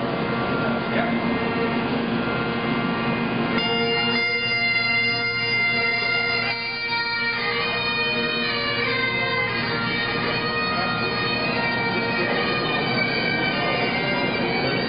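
Bagpipes playing a slow tune, the melody notes changing over a steady held drone.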